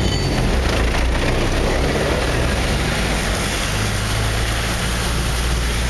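Truck engine running steadily, heard from inside the cab, with water rushing and splashing around the truck as it drives through deep water.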